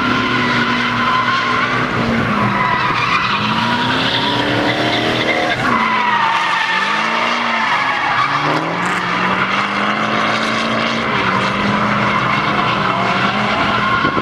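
Drift car engines revving up and down with tyres squealing, the engine pitch dropping and climbing again several times.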